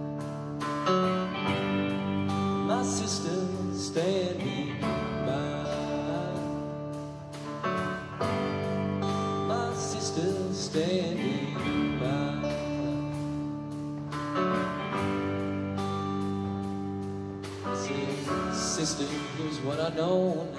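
Music: a country-style song with strummed guitar and long held notes, a wavering melody line coming and going over it.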